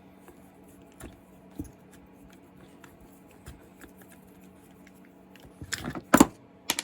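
Scattered light clicks of hand tools and small parts being handled during a chainsaw teardown, over a faint steady hum. About six seconds in comes a louder clatter of several sharp knocks, then one more just before the end.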